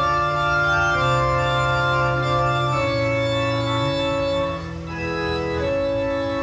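Organ music: slow, sustained chords held for a second or two each, moving from chord to chord with a brief dip between two chords about five seconds in.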